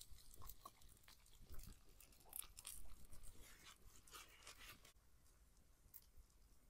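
Faint scattered crackling from eggs frying in a cast-iron skillet over a wood fire, thinning out after about five seconds.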